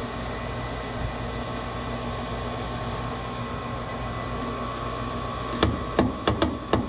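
Furnace draft inducer motor running with a steady hum. Near the end, a series of sharp taps on the pressure switch, a check of whether the switch is stuck.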